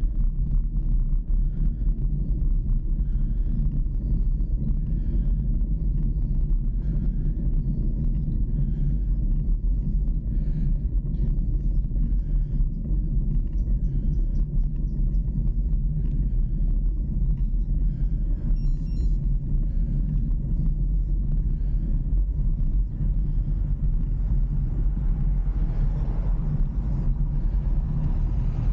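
Steady low rumble of a motor vehicle on the move: engine drone mixed with road and wind noise, holding an even level throughout.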